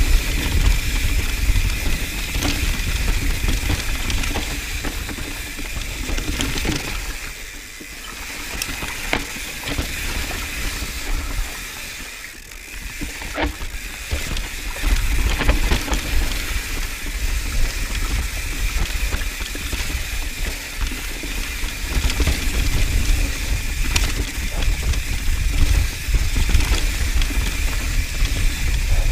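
Mountain bike descending a dry dirt singletrack: wind buffeting the mounted camera's microphone, tyres crunching and skidding over dirt and rocks, and the bike rattling over bumps. It turns quieter twice, around 8 and 12 seconds in, through slower sections.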